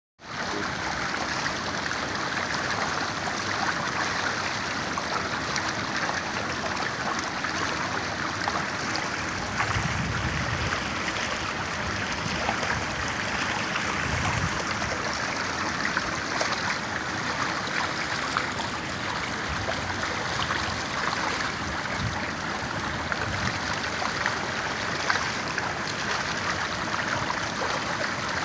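Steady rushing and splashing of water in a concrete trout raceway, where densely crowded trout thrash at the surface. A few faint low rumbles come and go about a third of the way in.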